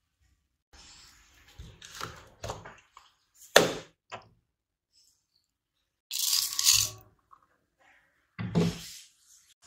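Kitchen handling sounds during food preparation: several sharp knocks and thuds, the loudest about a third of the way in, with a brief rustling, scraping burst a little after the middle and another thud near the end.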